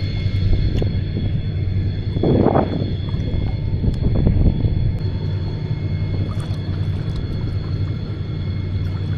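Boat motor running at a steady low drone, with two brief louder rushes of noise about two and a half and four seconds in.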